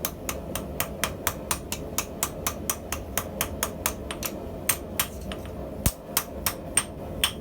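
Hand hammer striking steel on an anvil in a steady rhythm of about four blows a second, with a short pause about five seconds in and one heavier, duller blow just after it, as the scissor blank is forged.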